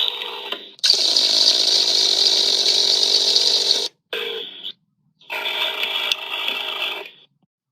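A string of edited sound-effect clips: rattling, noisy sounds that start and stop abruptly, with sudden cuts to dead silence between them.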